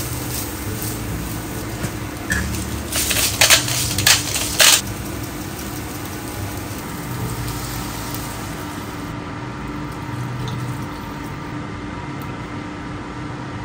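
Spatula stirring and scraping food in a nonstick pot, with a cluster of short, sharp scrapes about three to five seconds in.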